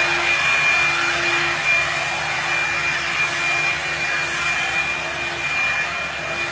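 Revlon blow dryer brush running steadily, a rushing blast of hot air with a constant high whine and a fainter low hum from its motor.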